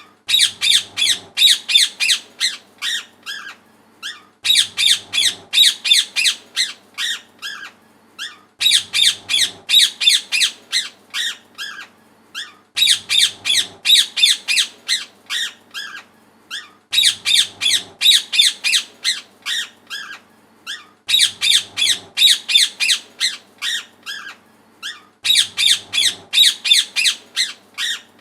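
Parrot squawking in rapid runs of harsh, high calls. Each run lasts about two seconds, and the runs repeat at even spacing about every four seconds.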